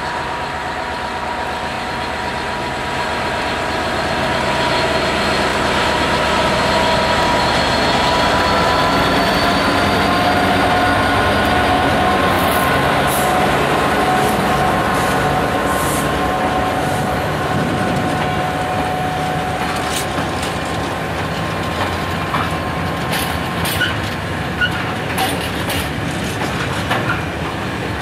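Class 66 diesel-electric locomotive, its two-stroke V12 engine running under load, passing close by with a ballast train; loudest as the locomotive goes past, a little before halfway. Then the hopper wagons roll by with irregular clicks and clatter of wheels over the rail joints and a few short wheel squeaks.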